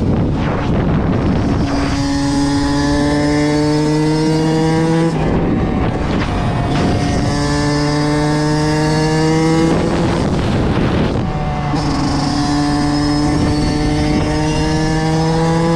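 Kawasaki KX85 two-stroke dirt bike engine at high revs, its pitch climbing slowly through each gear. There are rough breaks at the shifts about two, six and eleven seconds in.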